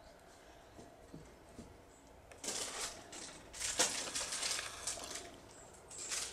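Irregular rustling and crunching of dry leaves and grass, in several bursts starting about two and a half seconds in.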